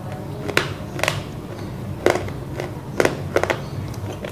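Close-up chewing of roasted clay: several sharp crunches at uneven intervals, two of them close together near the end.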